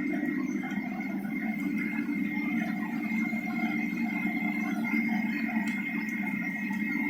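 Running machinery giving off a steady low hum with a constant high whine over it.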